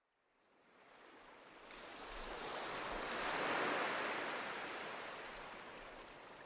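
Sea surf: a rush of waves that swells up out of silence, is loudest about halfway through, then slowly dies away.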